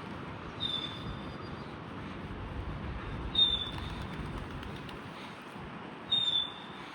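A bird calling three times with a short, high, clear whistle that falls slightly in pitch, about every three seconds, over a steady low rumble of distant city traffic.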